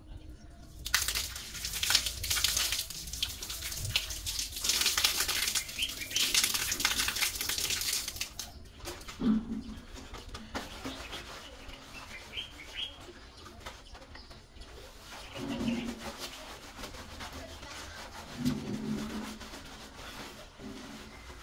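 A loud rush of noise with many small crackles lasts about seven seconds. After it, a dove coos low a few times, with a few faint bird chirps in between.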